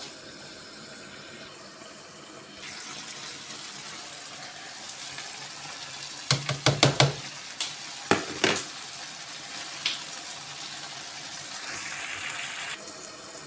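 Chicken breast, peppers and water simmering in a frying pan, a steady sizzle that comes in about two and a half seconds in. Between about six and nine seconds in, a couple of quick runs of knocks and clicks as spinach leaves are tipped into the pan.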